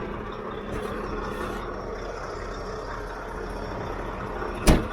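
Truck engine idling steadily, with one sharp knock near the end.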